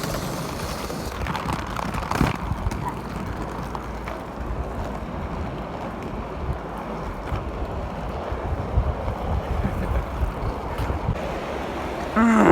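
Wind buffeting the microphone over a steady low rumble, with a few sharp clicks about two seconds in. A voice-like sound starts right at the end.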